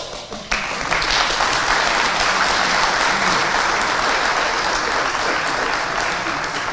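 Audience applauding, with the clapping jumping to full strength about half a second in and then holding steady.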